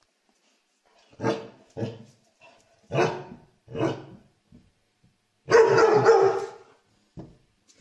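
A dog barking: four short barks about a second apart, then a longer, louder burst of barking lasting about a second.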